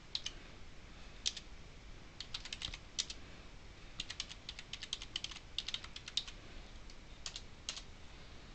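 Typing on a computer keyboard: faint key clicks in quick runs, with short pauses between them.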